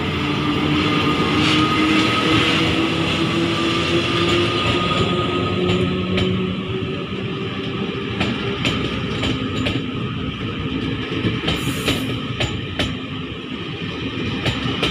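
A Taiwan Railways E400-series electric locomotive runs past with a steady whine that drifts slowly in pitch, over a heavy rolling rumble. Its passenger cars follow, with wheels clicking over the rail joints from about halfway through.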